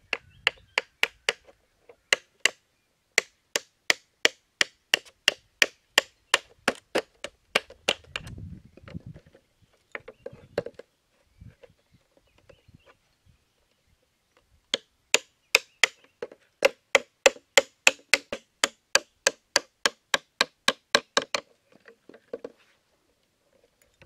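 Small hatchet chopping at a clear plastic bottle, sharp even strikes about three or four a second. They come in two runs of several seconds each, with a pause and some plastic rustling between them.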